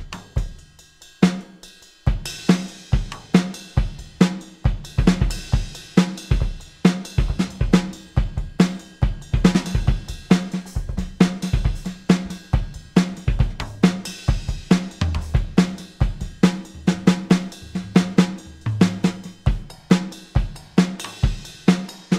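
Sampled vintage drum kit, the Ivory Kit of Native Instruments' Abbey Road Vintage Drummer, played from Maschine pads: kick, snare and hi-hat and cymbals. A few scattered hits settle into a steady beat about two seconds in. The kit has a rounded, very smooth sound.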